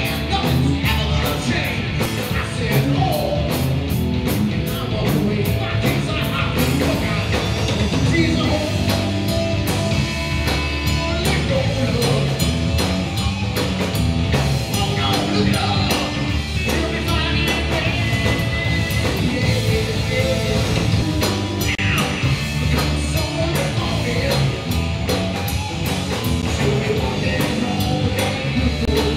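Live rock band playing a song: electric guitar and drum kit, with a man singing.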